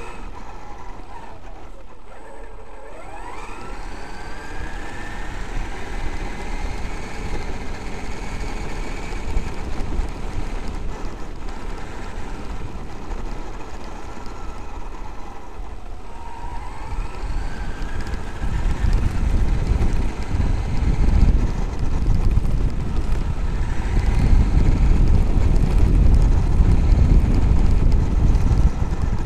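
Traxxas X-Maxx RC monster truck's brushless electric motor whining, rising and falling in pitch with the throttle, over tyres running on gravel. From about 18 seconds in, a louder low rumble takes over.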